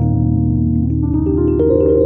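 Background music played on a piano-like keyboard: held notes, then a run of notes climbing upward in pitch over the second half.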